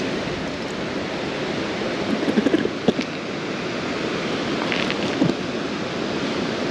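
Steady rush of flowing river water, with a few faint clicks about two to three seconds in.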